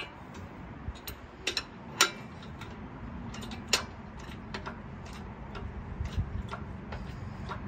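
Irregular sharp metal clicks and knocks over a low rumble as a wheeled lift carrying an engine is rolled and shifted slowly across a driveway; the two loudest knocks come about two seconds and just under four seconds in.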